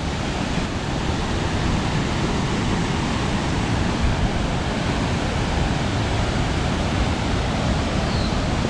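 Steady, loud rushing noise with no speech: an even roar from low to high pitch that stays level throughout.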